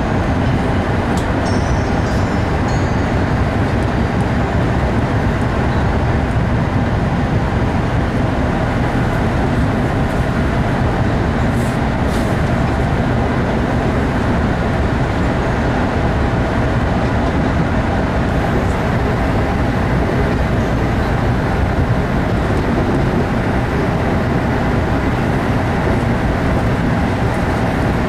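MBTA Red Line 01800-series subway car running along open track, heard from inside the car: a steady, unbroken running noise of steel wheels on rail.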